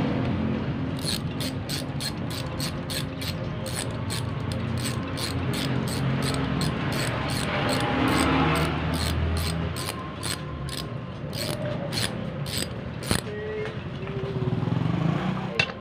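Ratchet wrench clicking in a steady rhythm, about three clicks a second, as a bolt on an alternator's rear housing is turned. The clicking stops shortly before the end.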